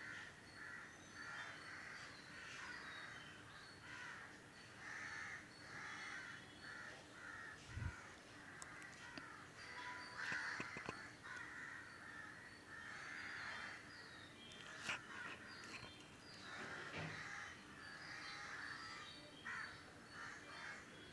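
Crows cawing repeatedly and faintly, many short separate caws, with a couple of sharp clicks in between.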